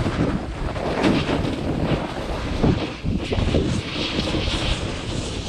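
Wind buffeting the microphone of a pole-held camera in uneven gusts, over the hiss and scrape of a snowboard sliding across snow.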